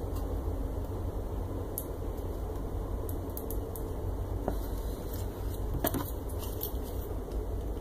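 Occasional light clicks and clinks of small electronic parts, stepper driver modules, being handled and fitted, over a steady low hum. The clearest clicks come about four and a half and six seconds in.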